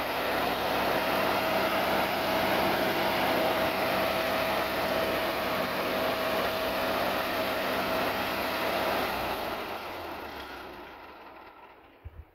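1957 Ford tractor's four-cylinder engine running steadily with a thin steady whine, then shut off about nine seconds in and winding down to quiet over a few seconds.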